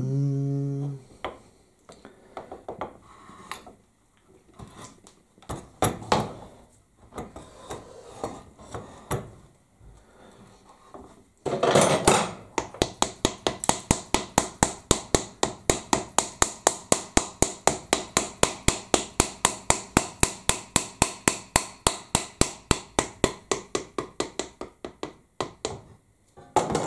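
Steady hammer blows on a bench grinder's motor housing, about three a second, starting about twelve seconds in and going on almost to the end. They follow a brief hum and scattered knocks of the motor parts being handled.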